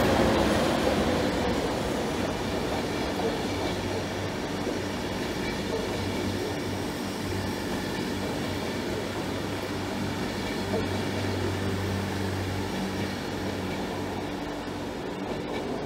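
Passenger train hauled by a ČD class 371 electric locomotive rolling away, its wheels on the rails fading steadily, with a steady low hum underneath.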